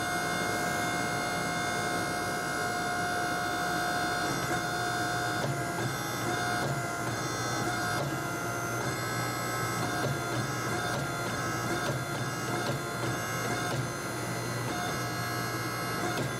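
Hydraulic forging press's pump and motor running with a steady droning whine while the fullering dies squeeze a groove into a red-hot blade. A lower hum joins in about five seconds in.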